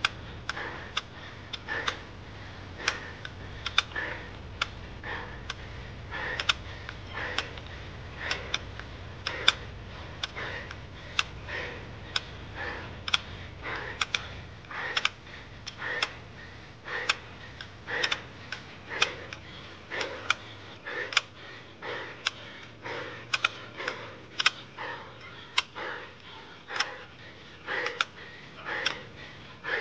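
Sharp clicks and taps, roughly two a second and unevenly spaced, over a low hum that fades out about halfway through.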